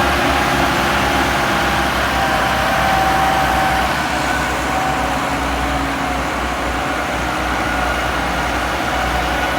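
A heavy vehicle's engine running steadily, with a deep low rumble and faint steady tones above it.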